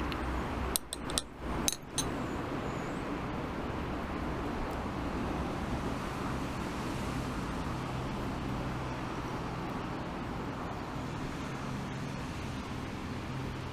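Steady background noise of city road traffic, a low even rumble with no single vehicle standing out. A few sharp clicks come about a second in.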